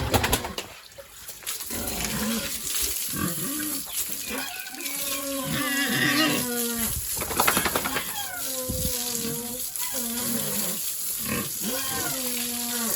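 Pigs calling over and over in a pen, a run of short pitched oink-like calls overlapping one another. There are a couple of sharp knocks, one right at the start and another about seven and a half seconds in.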